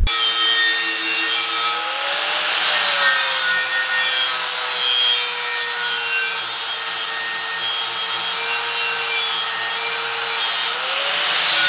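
Metabo angle grinder with a flap disc grinding a bevel into the rim of a steel tube, to prepare the edge for welding. It runs under steady load throughout, and its motor whine rises briefly about two seconds in and again near the end.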